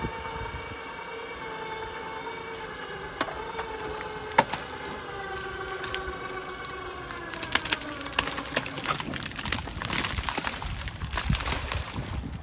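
Crane winch hauling a wire shopping cart up on its cable: a steady whine whose pitch slowly falls through the middle. In the second half comes a run of rattling knocks as the metal cart bumps against the concrete side of the bridge.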